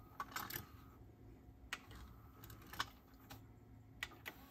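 Light, irregular clicks of the Pioneer T-1100 cassette deck's front-panel pushbuttons being pressed, about eight in all, a few in quick succession near the start and a pair about three seconds in, over a faint steady hum.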